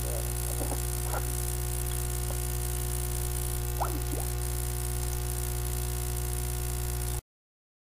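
Steady electrical mains hum with a stack of overtones and a hiss above it on the recorded phone-call line, with a few faint short blips. It cuts off abruptly to silence about seven seconds in.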